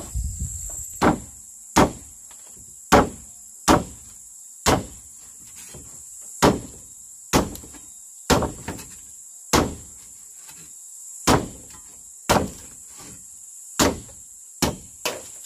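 A hand tool striking wood over and over, about once a second, with the steady high buzz of crickets or other insects behind it.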